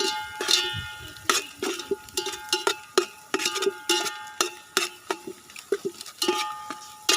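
A metal spoon stirring masala in a metal cooking pan, knocking and scraping against the pan a few times a second; each knock rings briefly.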